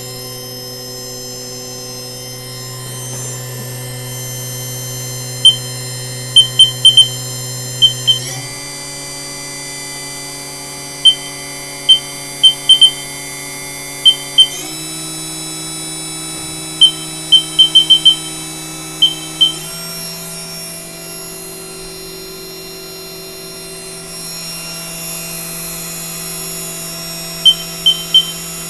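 Haas EC-400 horizontal machining center's spindle running with a steady multi-tone whine that jumps to a new pitch in sudden steps three times. Clusters of short, sharp high beeps sound through it.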